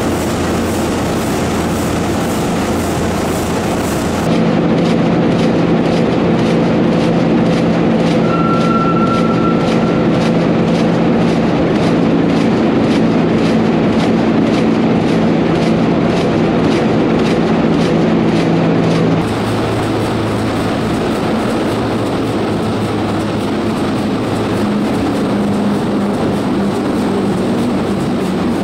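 Burmeister & Wain double-acting two-stroke marine-type diesel engine of 1932 running, a loud, steady mechanical clatter with an even rhythm.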